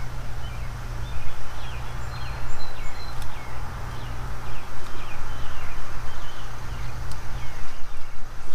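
A small bird chirping repeatedly in short, high, falling notes over a steady low rumble.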